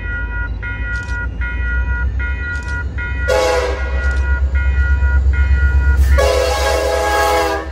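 Approaching RJ Corman EMD SD70M diesel locomotives, their two-stroke engines rumbling louder as they near. The horn gives a short blast about three seconds in and a longer, louder blast near the end.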